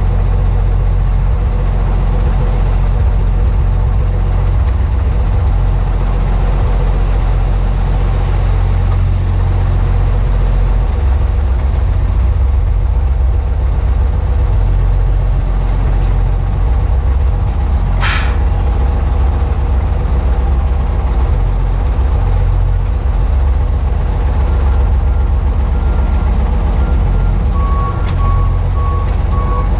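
Rollback wrecker's engine running with a heavy, steady low rumble as the truck moves with a lathe on its bed. A short hiss comes about two-thirds of the way through, and reversing beeps start near the end.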